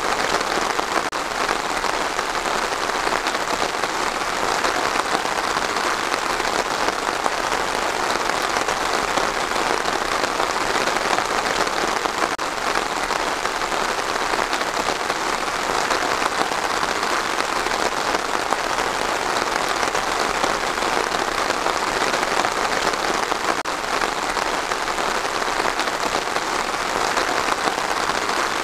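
Steady rain falling on trees, an even hiss with no let-up.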